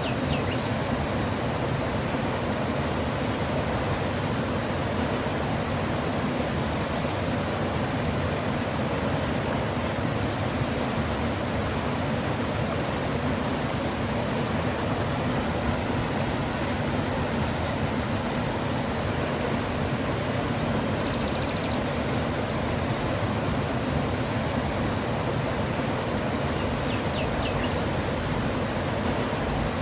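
Mountain river flowing, a steady rush of water. Over it an insect chirps in a regular series of short high chirps, about two a second, with a couple of brief pauses.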